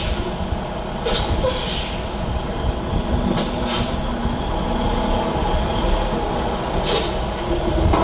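Diesel engine of a log truck with a knuckle-boom loader running at low speed as the empty tractor-trailer manoeuvres. It makes a steady heavy rumble, with a few short hisses.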